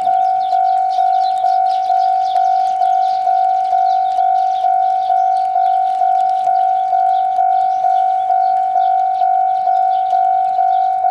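Railway level-crossing warning bell ringing steadily: one electronic bell tone repeated evenly about twice a second, each strike fading before the next.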